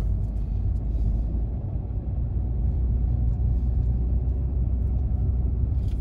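A car driving along a road: a steady low rumble of engine and road noise.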